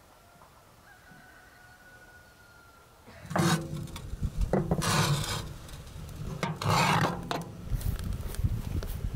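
A cloth towel rubbed hard over the rough, rusty steel of a wood stove: starting about three seconds in, three loud wiping strokes, then smaller rubbing.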